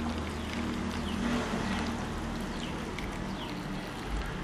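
Cooking water from boiled white cowpeas being poured from a pressure cooker onto raw pumpkin slices in a pan: a steady splashing pour of liquid over the vegetables.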